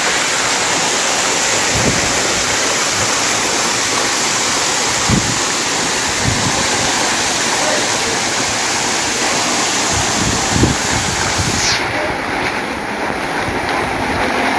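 Waterfall rushing in a loud, steady roar, with a few brief low thumps on the microphone. About twelve seconds in, the sound suddenly turns duller as its highest hiss drops away.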